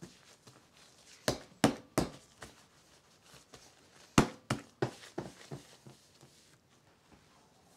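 Gloved hands pressing and slapping bread dough against a countertop while shaping it into a loaf: three sharp slaps about a second in, then a quicker run of about five slaps in the middle.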